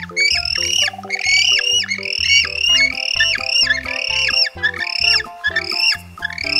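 King penguins calling: a rapid run of rising-and-falling calls, about three a second, over background music.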